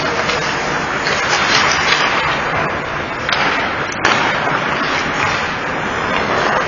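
Ice hockey play on the rink: a steady hiss of skates on ice with scattered clacks of sticks and puck, and one sharp knock about four seconds in.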